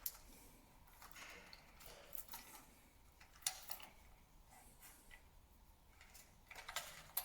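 Faint, scattered clicks and light taps of the swivel clamp and short rivets being handled and fitted against the aluminium mast.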